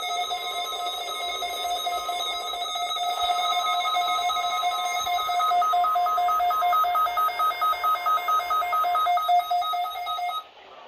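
NOAA weather radio receiver sounding its weekly-test alert: a loud, steady electronic alarm tone that breaks into rapid beeping about six seconds in, then cuts off abruptly near the end.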